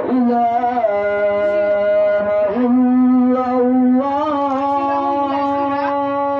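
A reed wind instrument playing a slow melody of long held notes without a break. It steps to a new pitch every second or two, with a short wavering ornament at each change.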